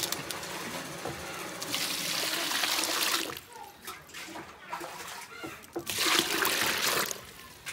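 Water being poured and splashing, in two bursts: one about two seconds in lasting over a second, and another about six seconds in.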